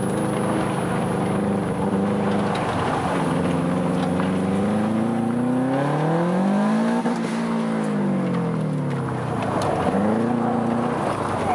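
Subaru Impreza GDA's turbocharged flat-four engine, heard from inside the cabin, driven hard through a gymkhana course. The revs hold, then climb for a few seconds to a peak about seven seconds in and fall away, then rise and drop again near the end.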